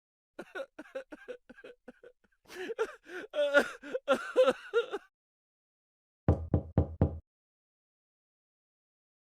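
A string of short comic sound effects: a quick run of light ticks, then a warbling, voice-like pitched sound, then four rapid low buzzes, each group cut off sharply.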